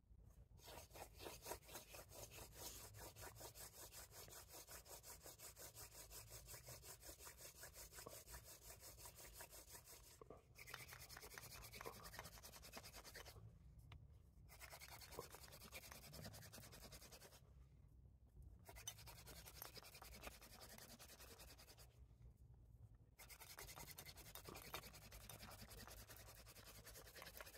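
Hand-drill friction fire: a seep willow spindle spun back and forth between the palms in a cottonwood root fireboard, a faint, rapid rhythmic rubbing broken four times by pauses of about a second as the hands go back to the top of the spindle. The set is not burning in well, so the strokes are short and pressed hard.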